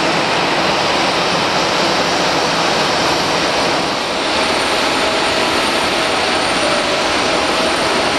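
Steady jet aircraft noise on an airport apron, an even rushing whine. The level dips briefly about halfway through, and a faint steady tone then joins in.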